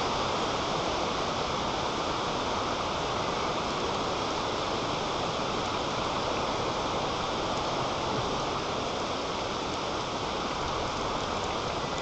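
Strong wind blowing over the nest-camera microphone high in a treetop: a steady rushing noise with no let-up.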